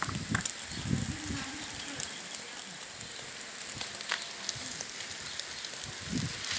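Charcoal barbecue grill with food on it, faintly sizzling with a steady hiss and scattered light crackles. A low voice sounds briefly in the background about a second in.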